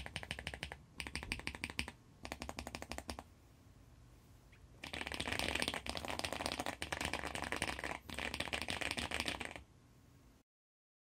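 Typing on a handwired mechanical keyboard with lubed, filmed Cherry Brown switches fitted with Boba U4T stems, under XDA-profile keycaps on a 3D-printed plate taped to cardboard. It is a rapid clatter of keystrokes in short bursts, with a pause of about a second and a half a third of the way in, then a longer, denser run of fast typing. The sound cuts out just before the end.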